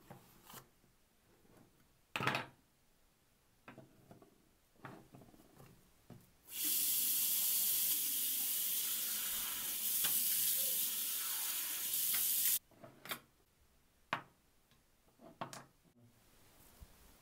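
Bathroom mixer tap running into a washbasin for about six seconds, starting and stopping abruptly. A few soft knocks come before and after it.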